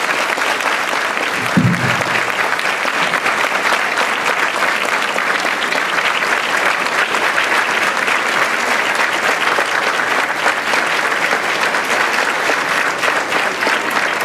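An audience applauding steadily, many people clapping at once without a break. A brief low thump sounds about a second and a half in.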